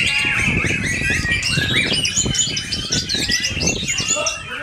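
White-rumped shamas (murai batu) singing, many birds at once, their quick whistled and chirped phrases overlapping densely, over a steady low rumble of background noise.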